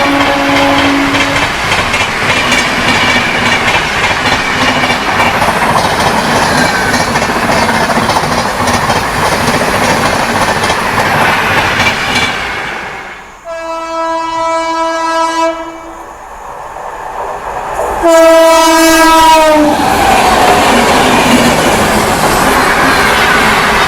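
Indian express train rushing through a station at speed: its horn ends with a drop in pitch as it passes, then its wheels and coaches clatter by for about twelve seconds. After a brief lull a train horn sounds a steady blast, then a second blast that drops in pitch as it passes, followed again by the clatter of wheels on rail.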